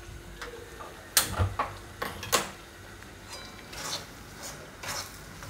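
Metal spatula scraping and knocking against a metal kadai while coarse semolina is stirred as it roasts in ghee: a few short sharp knocks and clicks, about a second in and again around two seconds, then fainter scrapes.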